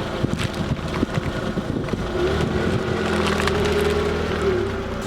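Car engine running as a tyre rolls over and crushes a toy, with crackling and snapping throughout. A steady hum rises above it from about two seconds in and drops away near the end.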